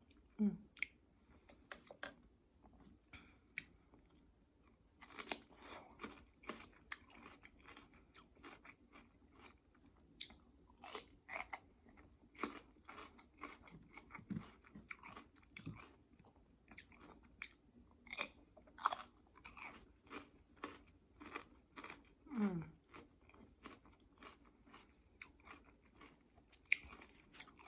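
A person chewing and crunching food close to the microphone, with many irregular small mouth clicks and bites.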